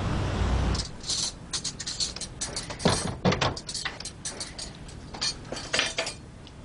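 Plates and cutlery being set on a dining table: a run of light clinks and knocks, with a couple of heavier knocks about three seconds in. The tail of background music fades out in the first second.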